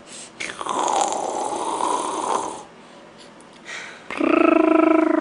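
A baby's raspy, breathy vocal sound lasting about two seconds. Near the end a woman's voice begins a long drawn-out call.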